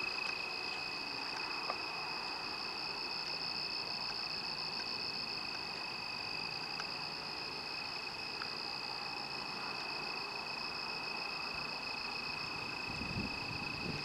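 Crickets chirping in a steady, continuous high-pitched chorus, with a few faint clicks.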